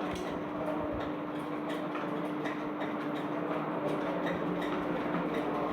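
Steady background hum with one faint continuous tone and light ticks scattered through it.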